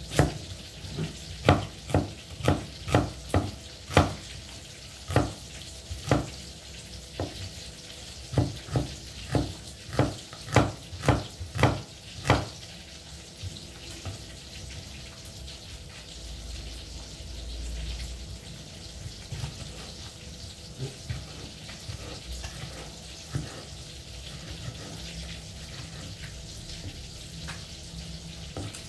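Large kitchen knife chopping onion and tomato on a wooden chopping board: a run of sharp chops about two a second for the first twelve seconds or so, then only occasional cuts. A steady hiss runs underneath.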